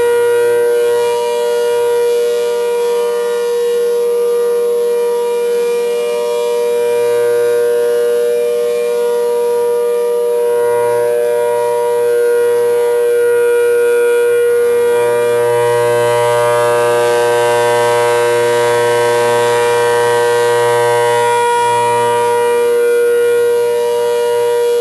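ACA Hurricane 130 outdoor warning siren sounding a loud, steady tone held at one pitch, its loudness swelling and easing slightly.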